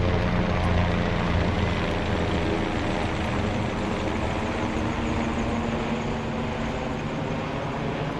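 Helicopter flying past, its engine and rotor a steady low drone with several held tones, slowly fading as it moves away.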